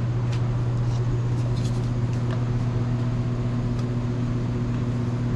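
Electric motor running with a steady, unchanging hum.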